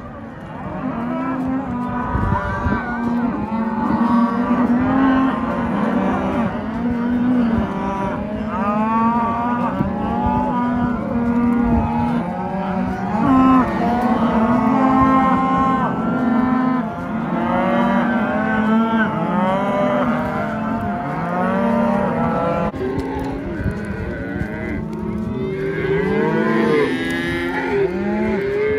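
A herd of cattle mooing continuously, with many calls overlapping one another.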